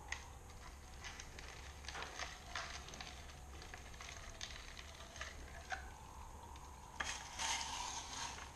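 Irregular small clicks, taps and water sloshing from hands working at the clear globe fitting of a DIY siphon sluice sitting in a water-filled plastic tub, over a low steady hum. A louder sharp click and rustling splash about seven seconds in.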